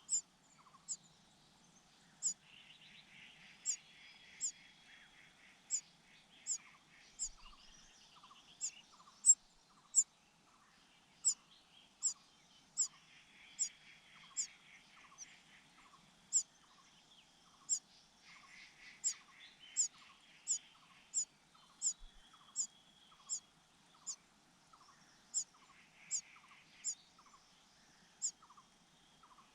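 Nestling birds begging for food, a cuckoo chick among host chicks. A sharp high falling call repeats about once a second, and a few times it is joined by a second or two of rapid buzzy begging calls.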